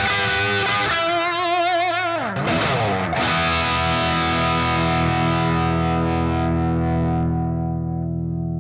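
Overdriven electric guitar through an MGL50, a 50-watt Marshall 2204-style head, played through a slant cab with Greenback-type speakers. Held notes with wide vibrato give way to a slide down in pitch about two to three seconds in, then a final chord is left to ring, starting to fade near the end.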